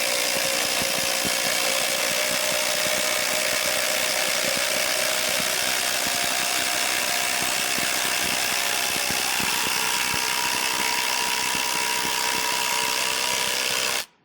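Two cordless brushless impact drivers, a Ryobi 18 V and a Kobalt 24 V, hammering at once as they drive 8-inch timber lock screws into 6x6 timbers. The sound is a continuous rapid impact rattle over the motors' whine, and the pitch of the whine shifts about two-thirds of the way through. It stops abruptly near the end.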